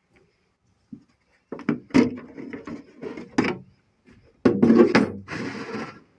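Irregular clunks, knocks and scraping of something being handled and shifted about, in two busy spells about one and a half and four and a half seconds in.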